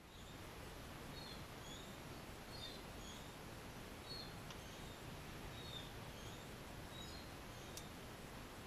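Faint steady background hiss with scattered short, high bird chirps, and a couple of soft clicks, one near the end.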